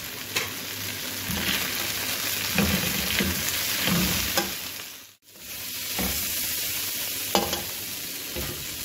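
Chicken, bell peppers and onions sizzling in a hot metal wok as a slotted metal spatula stirs them, scraping and clicking against the pan. The sound drops out briefly about five seconds in.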